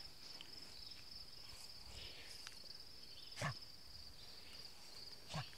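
Insects chirring steadily at a high pitch, with two brief, louder sounds about two seconds apart near the middle and the end.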